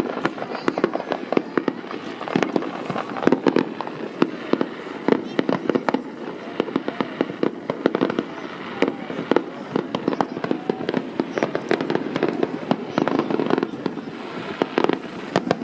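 Fireworks display: a dense, continuous barrage of overlapping bangs and crackles, many sharp reports every second with no break.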